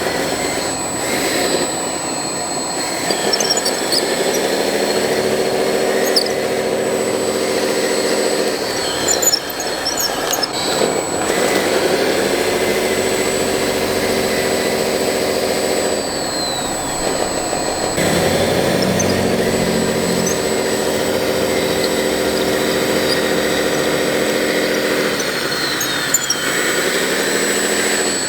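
Electric motor of a radio-controlled construction model whining. It spins up, holds a steady pitch for a few seconds and winds down again, three times over, as the machine is worked.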